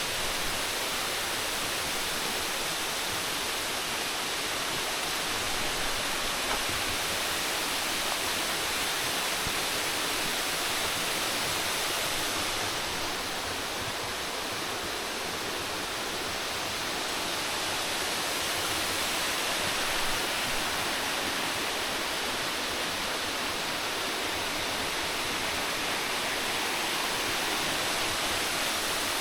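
Waterfall rushing, a steady, unbroken hiss of falling water.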